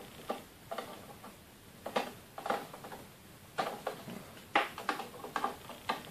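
Screwdriver tightening screws inside a desktop PC case: a series of irregular light clicks and scrapes of metal on metal.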